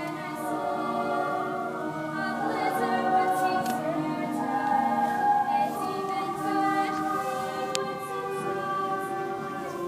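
A chorus of young stage-musical singers singing together in long held notes, the chords shifting every second or so.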